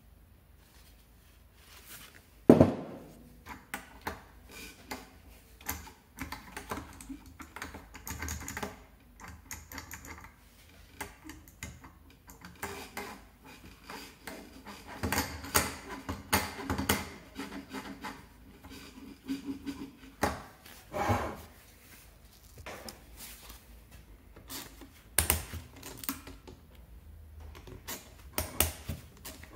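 Irregular clicks, clinks and knocks of metal scooter engine parts being handled and set down on the bench, with one sharp knock about two and a half seconds in.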